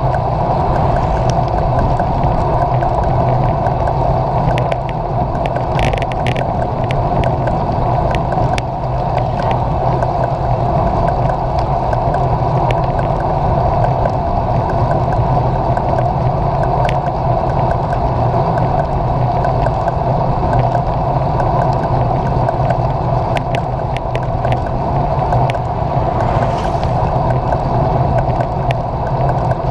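Steady rushing of wind over a handlebar-mounted camera and mountain-bike tyres rolling on asphalt while riding, with scattered small clicks and rattles.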